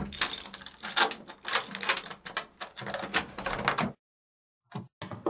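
A door's chain lock and latch being undone: a quick run of metallic clicks and rattles that stops abruptly about four seconds in, followed by a few short knocks.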